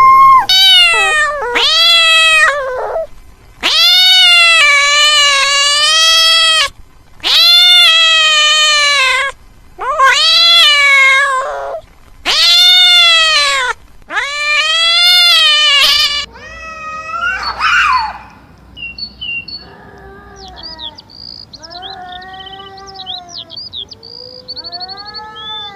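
A cat meowing over and over in long, loud, drawn-out meows, about seven in a row, each rising then falling in pitch. After about sixteen seconds the meows turn quieter and shorter, with faint high chirps among them.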